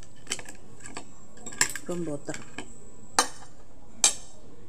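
Metal fork and spoon clinking and scraping against a plate while eating. There are four sharp clinks, and the last two ring briefly.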